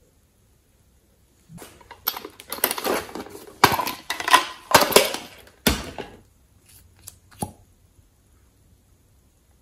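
Small hard-plastic toy case being handled and opened: clattering, rattling plastic with several sharp clicks of its lid and clasp, the loudest a snap about six seconds in, then a couple of light clicks.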